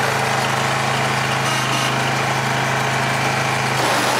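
Lawn tractor's small engine running steadily, its note shifting slightly near the end.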